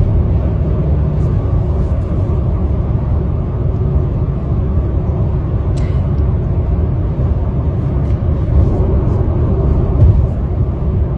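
Road noise of a moving car heard from inside the cabin: a steady low rumble.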